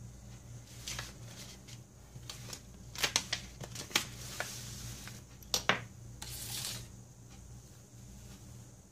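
Hand handling of small tools and parts on a workbench: a precision screwdriver and other small items set down with several sharp clicks and taps, with two brief rustles of paper in between.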